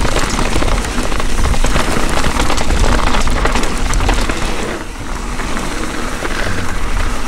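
Mountain bike ridden fast down a dirt trail: wind buffeting the chin-mounted camera's microphone as a low rumble, with the tyres rolling over the ground and the chain and frame rattling in many quick clicks.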